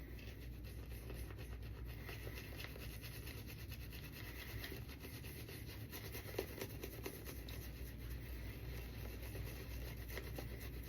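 Synthetic-knot shaving brush working a heavily loaded, thick soap lather: a faint, steady wet rubbing with fine crackles, one slightly louder tick about six seconds in.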